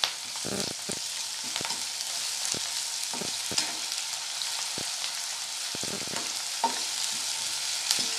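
Sliced onions, curry leaves and ginger-garlic paste sizzling in hot oil in a non-stick kadai, a steady hiss. A steel ladle scrapes and taps against the pan every so often as they are stirred.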